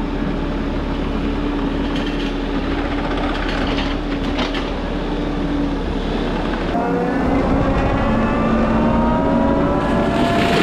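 Case skid steer running a Shearex forestry mulching head: steady engine and hydraulic drone with a few short knocks of material hitting the head. About seven seconds in the sound changes and a whine starts rising slowly in pitch.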